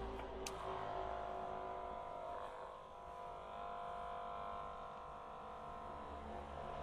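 Electric hair clipper running with a steady buzzing hum.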